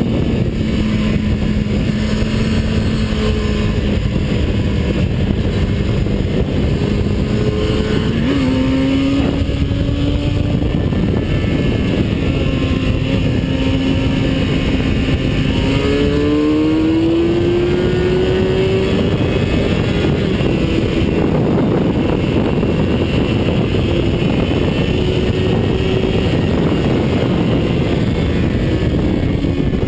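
Engine of a vehicle at speed on a race track, heard onboard under heavy wind noise. The engine note holds steady, steps up in pitch about eight seconds in, and climbs again as it accelerates around the middle.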